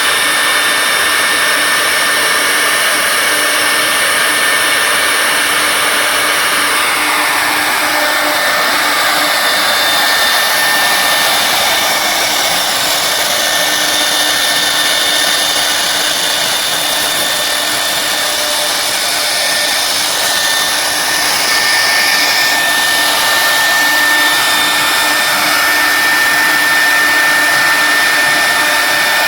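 Air-cooled spindles of a double-head wood CNC router running, a steady high whine over a loud hiss, getting a little louder about two thirds of the way through.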